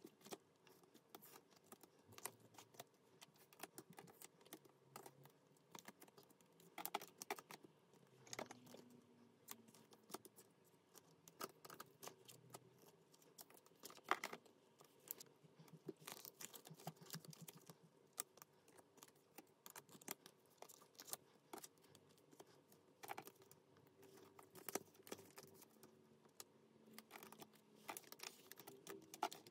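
Faint, irregular clicks, taps and light rustles of photocards and plastic binder sleeves being handled.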